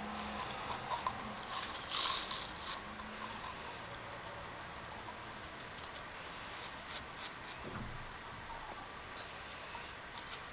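Sparse light clicks and taps, with a short scraping rub about two seconds in, from small parts being handled.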